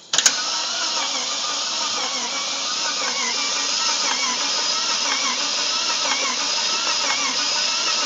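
A 1995 Mercedes E320's inline-six engine being cranked over by the starter motor, steady and even, without firing. This is the no-start that followed the engine overheating and spraying oil. A sharp click as the starter engages opens the sound.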